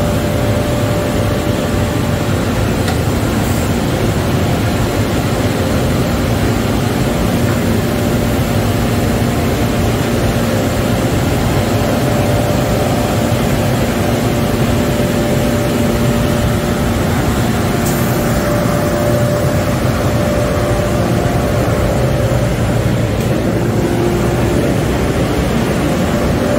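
Automatic tunnel car wash machinery running: a steady, loud mechanical whir with a constant hum underneath.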